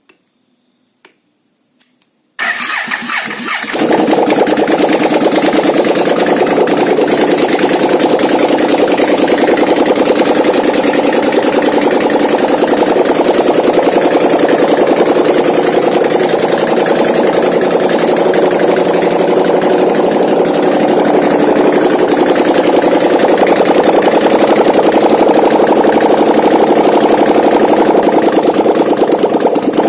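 An 800 cc V-twin ATV engine, converted from fuel injection to a Harley-Davidson carburettor, starts after a few faint clicks about two seconds in. It catches unevenly for a second or so, then runs steadily and loudly.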